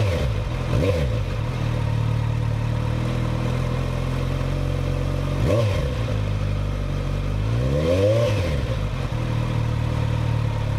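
Kawasaki Z900's inline-four engine idling with its stock muffler removed, blipped on the throttle: two quick revs at the start, another about five seconds in, and a longer rev rising and falling around eight seconds.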